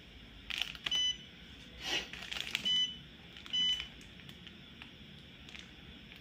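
Touchscreen of an AMPRO AdBlue pump testing machine giving three short, high beeps as its on-screen buttons are pressed, with a few soft taps in between.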